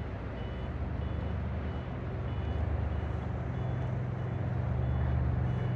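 Steady low diesel drone of a Rhine push boat's engines driving its container barge. It grows a little louder in the second half. A faint high beep repeats about twice a second.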